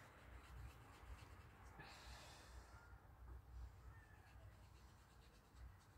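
Near silence, with faint soft brushing of a paintbrush working watercolour paint.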